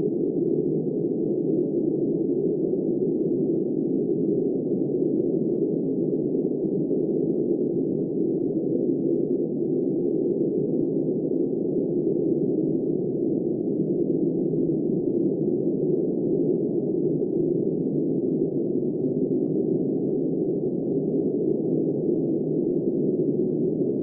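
Steady wind noise: a deep, muffled rushing with no gusts, rises or breaks.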